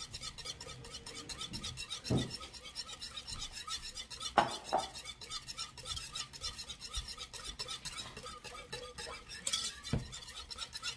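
Whisk stirring instant gravy in a saucepan, scraping and clinking against the pan in a quick, even rhythm, with a few louder knocks about two, four and a half, and ten seconds in. The gravy is being stirred constantly as it heats toward a boil.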